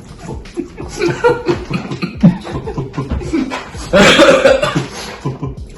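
Men chuckling and murmuring low, with a loud cough about four seconds in.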